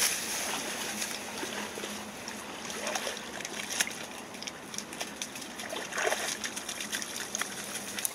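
Water splashing and lapping in a slow river as two golden retrievers swim, paddling through it, with scattered small splashes over a steady trickle of water.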